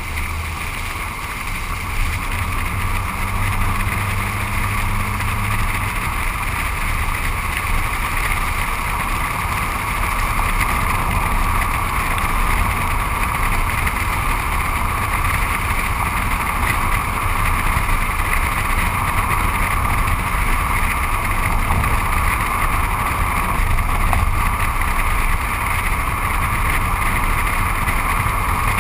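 Steady road noise from a car driving on wet pavement: tyres hissing through the water on the road, with wind rushing over the low-mounted camera's microphone and a low rumble underneath.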